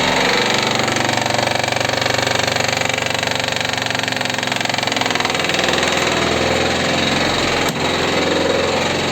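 Daewoo Sens engine running with the clutch engaged, the gearbox making a continuous rapid knocking rattle. It is the sound of a gearbox breaking up inside: the noise dies when the clutch is pressed, and pieces of a gear turned up in its oil.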